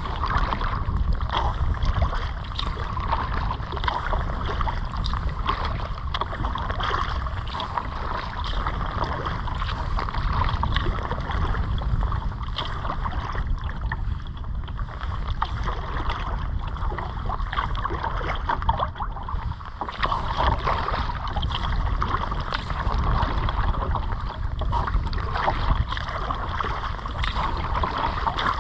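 Water noise around a kayak under way, with a steady rumble of wind on the microphone.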